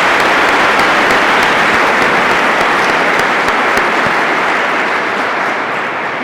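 An audience applauding steadily, a dense patter of many hands clapping, which fades away near the end.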